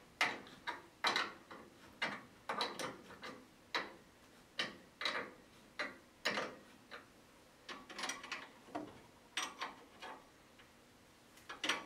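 Open-end wrench clicking on the upper mounting nut of a new front shock absorber as it is turned a little at a time and refitted, a short metallic tick roughly once a second with a couple of brief pauses.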